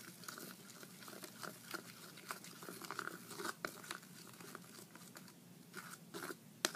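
A metal spoon stirring a thick, creamy slime mixture of white glue, shaving cream and lotion in a glass bowl: irregular wet scraping with frequent light clicks of the spoon against the glass.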